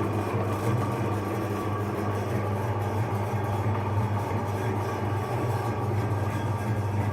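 Electric meat grinder running steadily, its motor giving a constant low hum.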